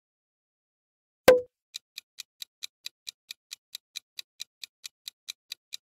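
A single sharp pop with a brief low ring, followed by a rapid clock-ticking sound effect of about four to five even ticks a second, marking a countdown timer.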